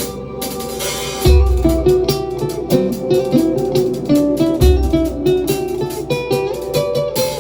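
Live band music: a guitar picking a quick melodic line, with deep sustained bass notes coming in about a second in and again near the five-second mark.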